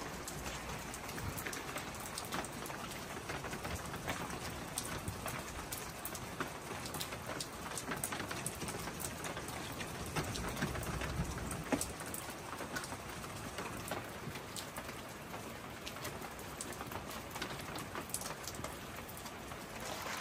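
Steady rain pattering, with many sharp individual drop ticks.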